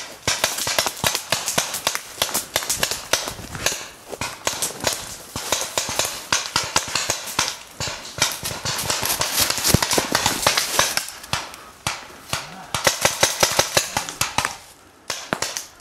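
Paintball markers firing in rapid strings of sharp pops, many shots a second, easing off briefly near the end.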